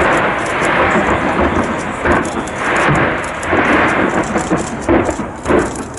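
Fireworks going off in a dense, continuous barrage: a rolling crackle and rumble of many bursts that swells and eases several times.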